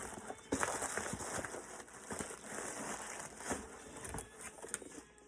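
Cardboard shipping box being opened by hand: irregular crinkling and tearing of packaging, with scattered knocks of cardboard being handled.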